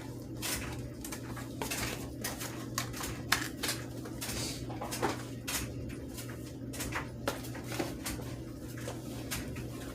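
Small parts and packaging being handled: scattered clicks, taps and rustles over a steady low electrical hum.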